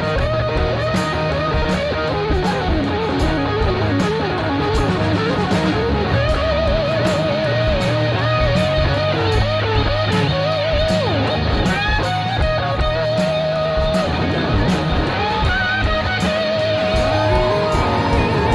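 Background music: a guitar-led track with a sustained, wavering lead line over a steady drum beat.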